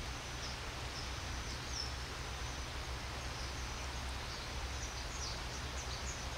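Steady rush of a river flowing, with a small bird calling in short high chirps now and then, more often in the second half.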